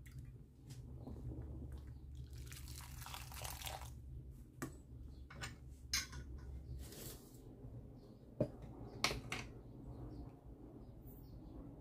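A metal ladle stirring amaranth greens in a stainless steel pot of simmering water, with liquid sloshing and a few sharp clinks of the ladle against the pot, the loudest about six and nine seconds in.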